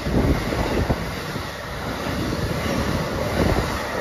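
Amtrak stainless-steel passenger cars passing close by at speed: a steady rushing noise of steel wheels on rail, with irregular clatter.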